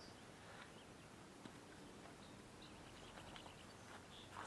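Near silence outdoors, with faint, scattered bird chirps in the distance.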